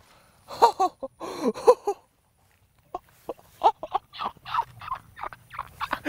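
A man's excited, wordless vocalizing: a few breathless exclamations in the first two seconds, then a run of short, rapid bursts of laughter.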